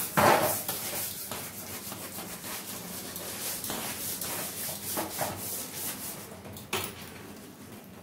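Hand scrubbing a plastic refrigerator crisper-drawer cover in quick back-and-forth strokes, an uneven rubbing and scraping, with a knock against the plastic just after the start.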